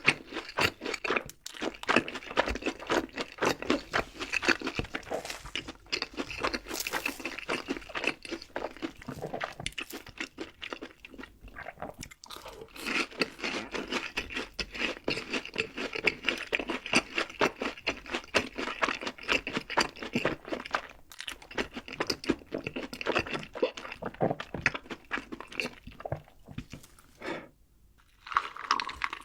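Close-miked crunching and chewing of crispy fried food, bite after bite in a dense crackle, with brief pauses and a short quiet stretch near the end.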